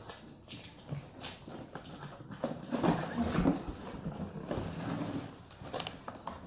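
A large cardboard box being opened by hand: scattered knocks, scrapes and flap sounds from the cardboard, with a loud thump at the very end.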